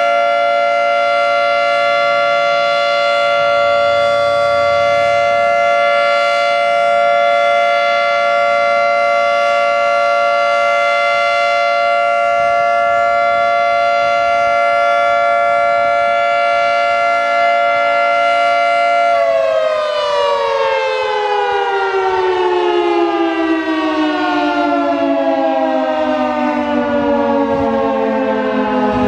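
Federal Signal 3T22A three-tone siren sounding its steady alert chord, then about two-thirds of the way through the pitch starts falling steadily as the siren winds down at the end of the one-minute alert.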